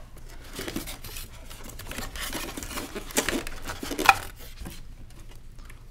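Styrofoam packing blocks and cardboard being handled while a box is unpacked: irregular rubbing, rustling and light knocks, with a sharper knock about four seconds in.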